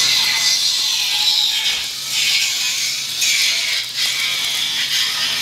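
Gas-shielded MIG welder arc crackling and sizzling as a bead is run on a steel pipe frame, in a few runs broken by short pauses, with music underneath.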